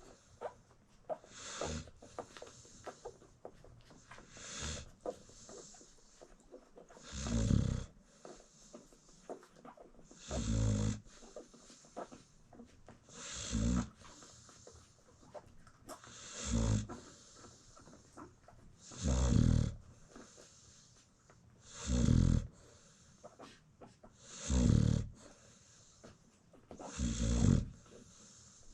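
American Bully mother dog snoring in her sleep, about ten snores at an even pace of roughly one every three seconds, each a low rumble with a breathy hiss.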